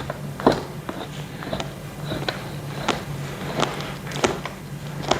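Light clicks and knocks of gaming chair parts and hardware being lined up and fastened by hand, about one every two-thirds of a second.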